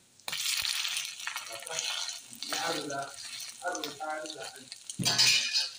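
A burger patty sizzling as it fries in a hot pan, with a metal spatula scraping and pressing it. The sizzle starts suddenly just after the start, and there is a louder burst of sizzle and scraping near the end.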